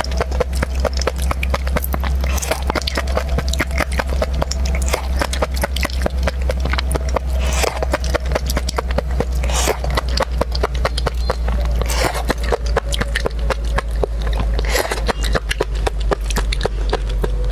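Close-miked eating of mud snails: a dense, steady run of small wet clicks and chewing sounds, with shells set down on a ceramic plate, over a constant low hum.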